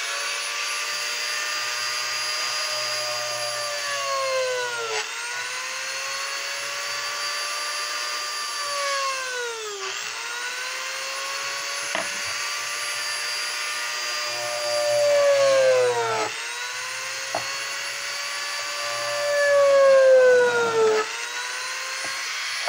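Handheld Dremel rotary tool running at high speed with a steady whine, grinding eye holes into a carved wooden bear. Its pitch sags and recovers about every five seconds as the bit is pressed into the wood, and it grows louder twice near the end.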